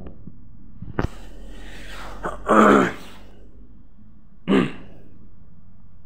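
A sharp click about a second in, then a low rumble of handling noise and two short breathy vocal sounds from a person, the louder one about halfway through and a brief one near the end.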